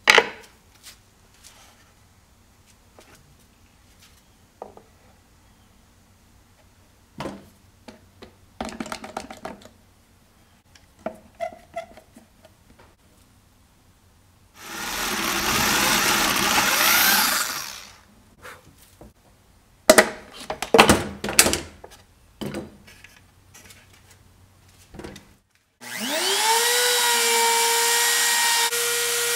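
Knocks and clicks of wood blocks and bar clamps being handled. A power drill bores through pine with a spade bit for about three seconds, followed by more loud knocks. Near the end a compact trim router starts up, its pitch rising quickly before it settles into a steady run.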